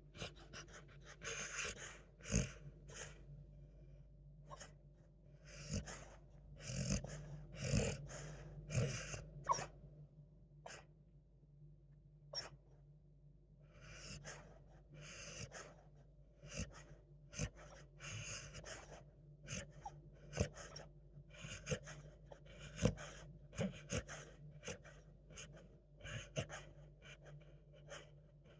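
Beagle snoring in its sleep: irregular noisy breaths in and out, broken by short sharp snorts every second or two.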